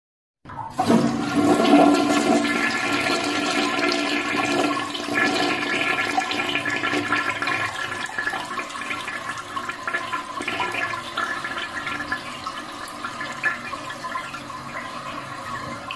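Toilet flushing: after a brief silence, a loud rush of water starts about half a second in and slowly fades as the water keeps running.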